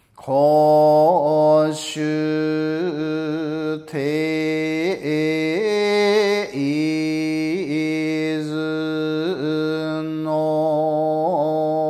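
A solo male voice chanting Buzan-school Shingon shōmyō (a hyōbyaku) in long, held notes. The pitch steps slowly between a few notes, with small wavering yuri ornaments at the changes, and there is a short breath break near the end.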